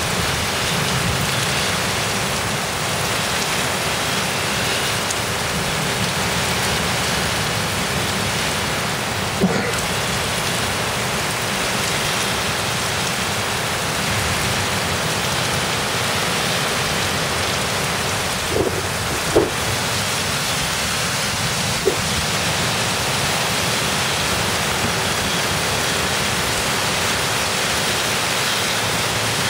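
Heavy wind-driven rain of a severe thunderstorm pouring steadily. A few brief sharp knocks stand out: one about a third of the way in and three close together about two thirds of the way through.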